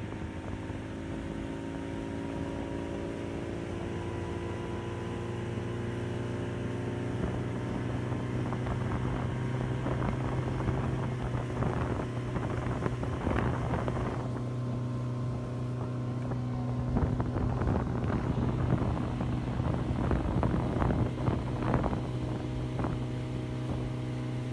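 Motorboat engine running under way, its pitch rising gently over the first few seconds as the boat speeds up. From about seven seconds in, irregular gusts of wind on the microphone and water churning in the wake join it.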